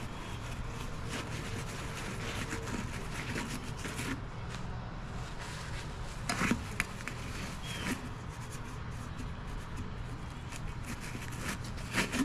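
Small scraping and handling sounds as rust is scooped and wiped out of a small-engine carburetor, with a couple of sharper knocks, one about six and a half seconds in and one near the end, over a steady low hum.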